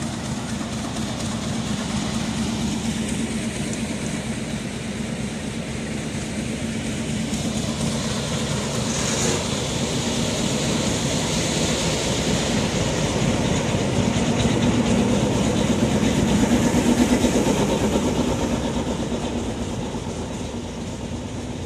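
Diesel locomotive engine idling close by: a steady low drone with a continuous hiss over it, swelling a little about two-thirds of the way through.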